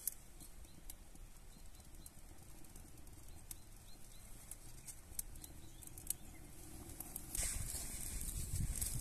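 Small wood fire in a stone hearth: dry leaves and kindling crackling faintly with scattered sharp pops. Near the end it gets louder, with denser crackling and low knocks as the flames take hold in split kindling and more splinters are handled.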